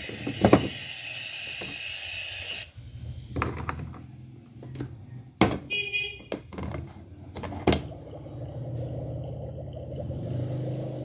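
Hard plastic toy-kitchen parts being handled: the battery-powered burner sound unit being fitted back into its well and a plastic toy pot set down on the burner, giving several separate knocks and clicks. A steady high-pitched sound stops a little under three seconds in.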